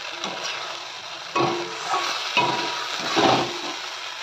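Chopped vegetables sizzling in oil in a steel karahi while a metal slotted spoon stirs them, clanking and scraping against the pan four or five times.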